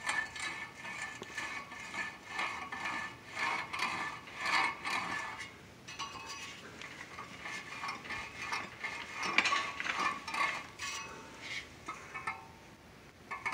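Rusty steel wheel hub of an old John Deere two-bottom trip plow being wiggled back and forth on its seized axle, giving irregular metal clicks, scrapes and short squeaks as the loosened hub starts to move.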